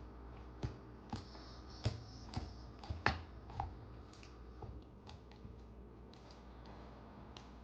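German shepherd chewing a rawhide bone: irregular sharp clicks and cracks of teeth on the hide, coming thickest in the first half and thinning out later.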